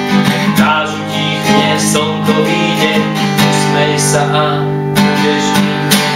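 Acoustic guitar strummed in steady, ringing chords, playing out the final bars of a song with no singing.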